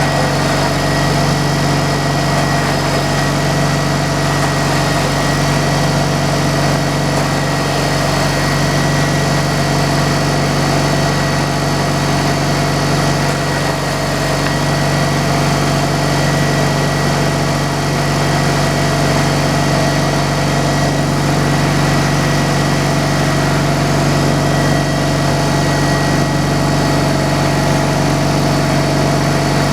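Sawmill machinery running steadily at a constant speed: an engine hum with a steady high whine over it, unchanging throughout.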